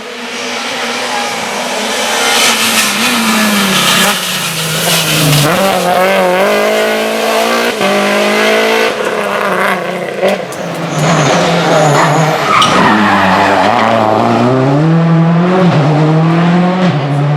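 Rally car engine at full load, its pitch climbing and dropping again and again as it changes gear and lifts off and on the throttle. It grows louder over the first couple of seconds as it approaches, then stays loud, with tyre noise under it.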